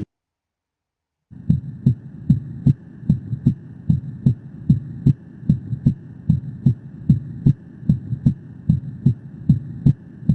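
Recorded heart sounds from an auscultation teaching recording: a regular rhythm of short, low heartbeat thumps over a steady hiss. They start about a second in, after a moment of silence.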